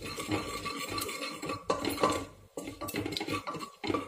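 Wooden spatula stirring cumin seeds and asafoetida in hot oil, scraping and knocking against a pan in irregular strokes.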